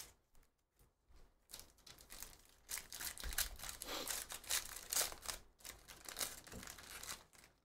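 Trading-card pack wrappers crinkling and tearing as packs are ripped open. A few faint clicks come first, then a dense run of crinkling starts about a second and a half in.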